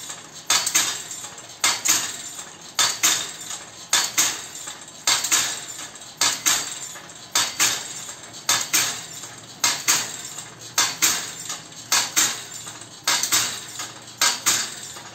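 Homemade steel rice-transplanter prototype running its motor- and chain-driven planting mechanism. Metal parts clank in a steady rhythm, a double clank about once a second.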